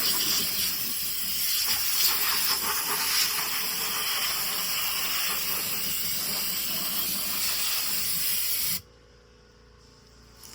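Compressed-air blow gun hissing in one long steady blast while cleaning a combine header. It cuts off abruptly near the end, leaving a faint steady hum.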